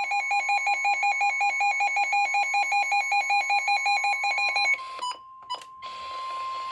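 Weather radio alert: a receiver's alarm beeps rapidly, about six or seven beeps a second, over the steady 1050 Hz warning alarm tone of NOAA Weather Radio, which signals that a warning is about to be broadcast. The beeping stops abruptly a little under five seconds in, a couple of clicks follow, and the steady tone then continues over radio hiss.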